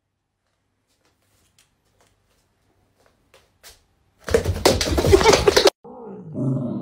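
Great Dane letting out a sudden loud, harsh cry of about a second and a half, a few seconds in, as a puppy chews its paw. Just after it, a cat growls low and steadily.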